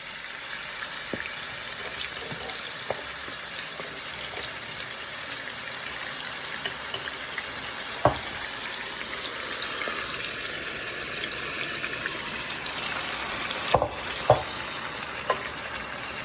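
Seasoned chicken livers sizzling steadily in hot cooking oil in a pot. A few sharp knocks come through, one about halfway and a cluster near the end.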